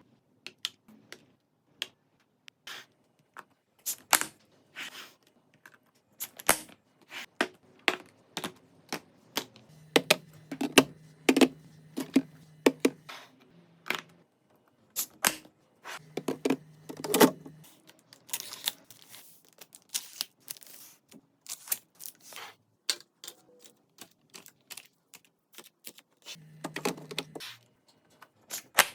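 Food containers and packages being handled and set into a refrigerator: a run of irregular clicks, taps and knocks, with brief low hums now and then.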